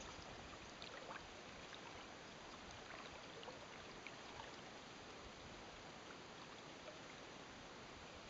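Faint steady hiss of open-air ambience over calm shallow water, with a few light ticks in the first half.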